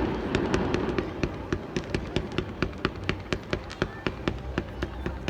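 Fireworks: the rumbling echo of a volley of bangs dies away, then a long run of sharp crackling pops, about four or five a second.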